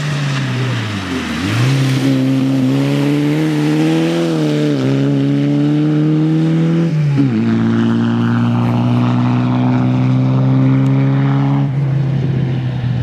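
Škoda 120 GLS rally car's four-cylinder engine driven hard: the pitch drops about a second in, then climbs and holds high, with two short breaks in pitch around five and seven seconds in, and it stays steady until near the end. A hiss of tyres on the wet road runs underneath.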